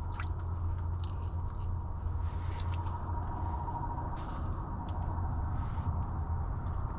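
A steady low hum with a thin, steady high tone under it, and a few faint, scattered clicks and rustles from a small pocket ice-fishing rod and reel being worked while playing a fish.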